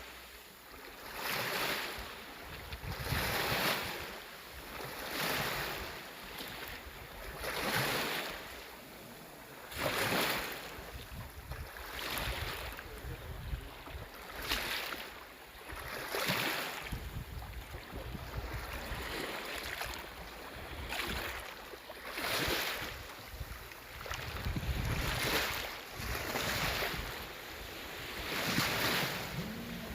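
Sea waves washing onto the shore in regular swells, one every two seconds or so, with a low rumble of wind on the microphone.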